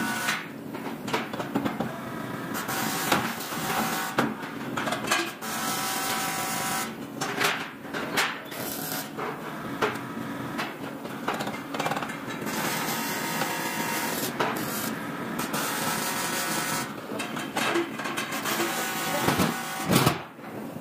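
Aluminium ladder workshop noise: a steady machine hum and hiss with irregular metal clanks and knocks, the loudest near the end.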